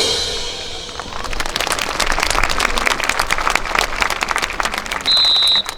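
A drum and cymbal hit rings out, then the crowd applauds for several seconds. Near the end a shrill whistle blast cuts through once, held for about half a second.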